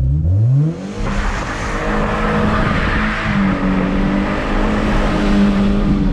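Car engine revving up quickly in the first second, then held at high, steady revs with a loud rushing noise over it; the revs step up slightly about three seconds in.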